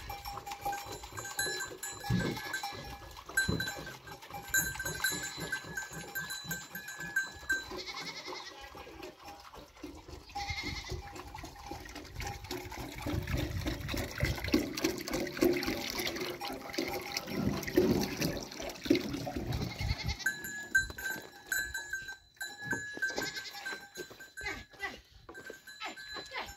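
Goats drinking from a metal water trough, with scattered small knocks and clatters as they crowd around it.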